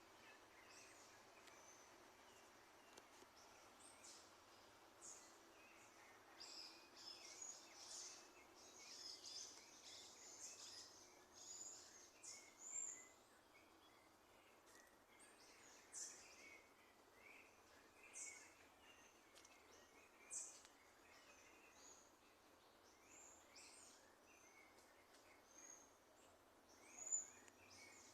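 Faint birdsong: many short, high chirps and calls from several birds over a soft background hiss. They are busiest between about six and eleven seconds in, with one louder call near the end.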